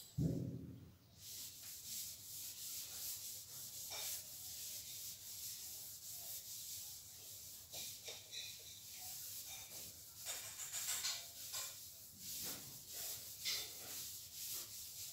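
A handheld eraser rubbing across a whiteboard in repeated uneven strokes, wiping off marker writing. A short thump comes right at the start and is the loudest moment.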